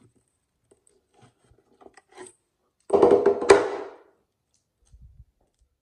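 Clear no-glue slime squished and stretched in the hands: faint sticky clicks and pops, then a loud wet squelch lasting about a second, about three seconds in.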